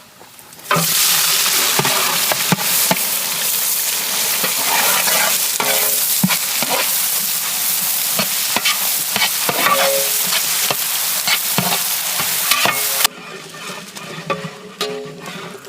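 Chopped onions sizzling loudly in hot coconut oil with whole spices as they are stirred in the pan, with clicks and scrapes of the spoon. The sizzling starts suddenly just under a second in and cuts off abruptly near the end.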